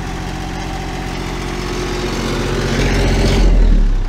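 Gen-Pac truck auxiliary power unit, a small diesel generator, running steadily with a noisy housing rattle. The owner blames the rattle on a broken piece under its cover. It grows louder near the end as it is heard up close.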